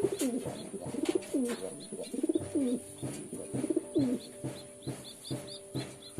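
Domestic pigeons cooing over and over: low, throaty rolling coos follow one another every half second to a second. Faint high chirps join in during the second half.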